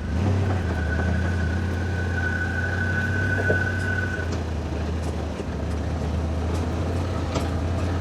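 A motor vehicle's engine running steadily as a low drone, with a thin high whine over it for about the first half.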